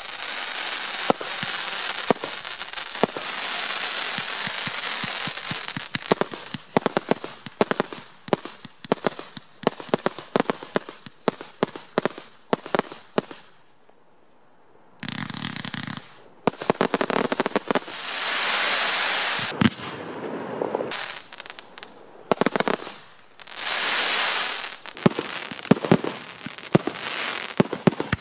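Fireworks display: a dense run of crackling and sharp bangs from bursting shells, a short lull about halfway, then more bangs with two hissing stretches of a second or two each.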